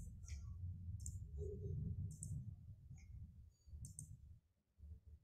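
Faint computer mouse clicks, a few sharp clicks about a second apart, over a low rumble that fades out after about four seconds.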